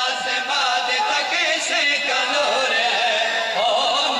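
Men's voices chanting in a melodic, sung style, several voices overlapping.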